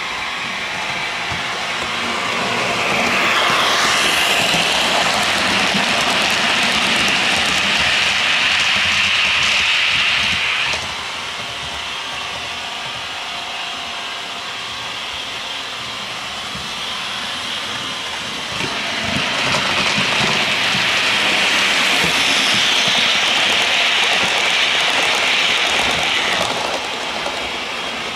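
Sound-fitted 00 gauge model Class 55 Deltic diesel locomotives running on a layout: the sound decoder's Napier Deltic engine sound from a small onboard speaker, with wheels running on the rails. The sound swells twice as a train comes close, each time dropping off suddenly, over a steadier, quieter running sound in between.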